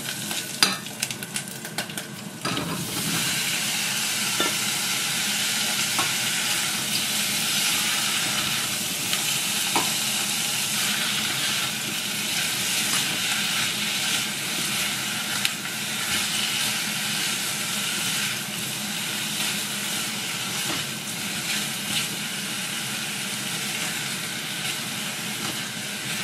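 Sliced bratwurst frying with onion and garlic in margarine in a small pot: a steady sizzle. A few knocks come in the first couple of seconds, and the sizzle grows louder about two and a half seconds in.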